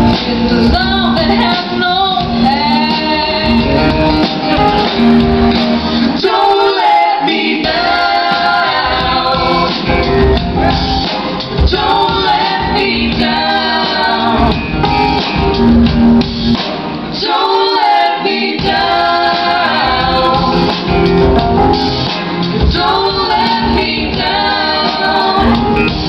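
Live band performance of a pop song, with several singers at microphones singing together over keyboards and a beat.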